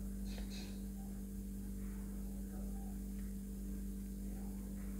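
A steady low hum, with faint scratches and ticks from a metal crochet hook pulling yarn through stitches.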